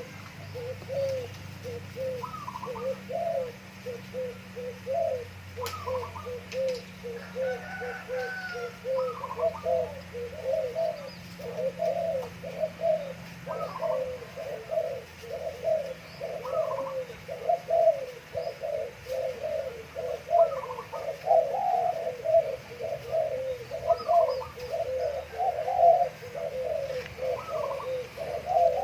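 Doves cooing over and over in dense repeated phrases, with a shorter, higher call every couple of seconds.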